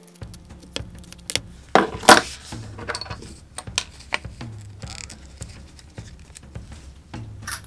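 Small metal clicks and clacks as a riveting pliers presses a rivet and a red metal card-holder frame is handled on leather, with two louder clacks about two seconds in.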